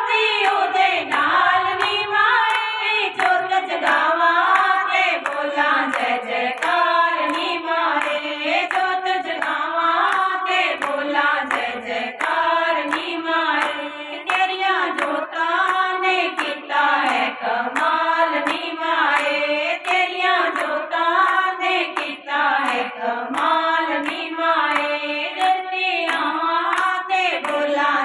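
A group of women singing a Hindu devotional bhajan together, clapping their hands in a steady rhythm to keep time.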